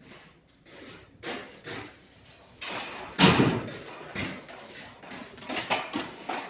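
A few irregular knocks and clunks, with rustling between them; the loudest knock comes about three seconds in.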